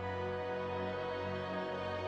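Soft, slow background music with sustained instrumental tones.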